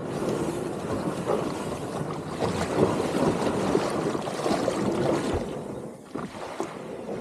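Water rushing and splashing along the hull of a moving kayak, with wind buffeting the microphone. It eases off about six seconds in.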